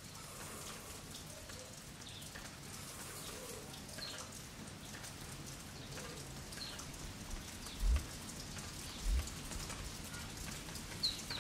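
A steady, even hiss like light rain, with faint short high chirps scattered through it and two dull low thumps about eight and nine seconds in.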